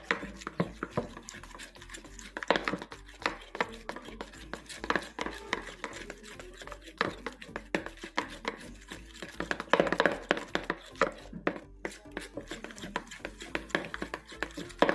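Homemade slime being worked by hand, making a steady stream of irregular sticky clicks and small pops.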